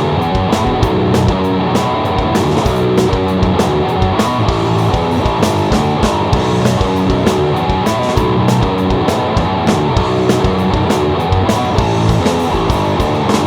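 Electric guitar distorted by a Mantic Vitriol pedal, a Gibson Les Paul Custom through a Hiwatt amp, playing a heavy riff with a five-string bass guitar and a drum kit keeping a steady beat.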